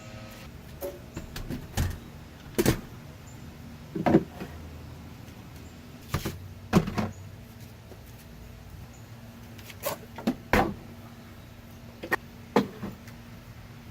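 About a dozen irregular knocks and clunks of hard objects being handled and set down, some in quick pairs, over a faint steady hum.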